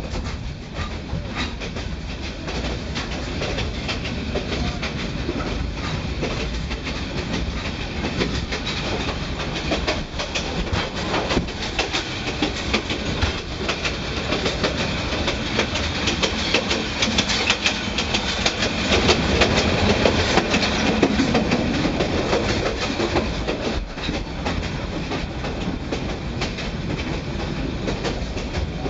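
Myanmar passenger train running, its wheels clattering over the rail joints with a steady stream of clicks and knocks as the carriage rocks and rattles. The sound gets louder for a few seconds past the middle.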